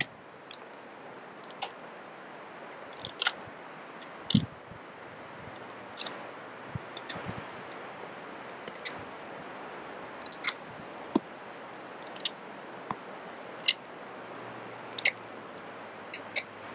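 Knife blade whittling a wooden stick: short, sharp shaving cuts about once a second, irregularly spaced, over a steady background hiss.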